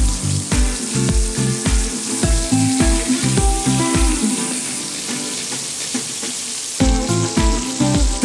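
Marinated pomfret shallow-frying in hot oil in a kadai, a steady sizzle, under background music with a beat of about two thumps a second. The music drops out for about two seconds past the middle, leaving the sizzle on its own.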